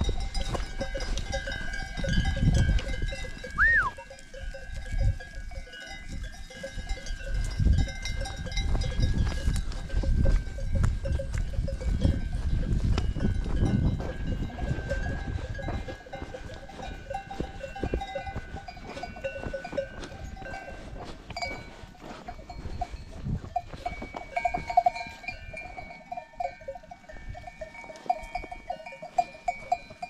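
Bells on a grazing flock of sheep and goats, many of them clinking and ringing at different pitches as the animals move. A heavy low rumble runs under them through the first half and dies away about halfway.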